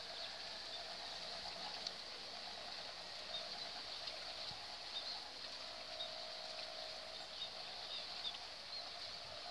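Kite sound banner (the hummer bow of a wau puyoh kite) droning high overhead: a faint warbling hum that swells and fades, settling into a steadier tone for a second or so past the middle before warbling again near the end.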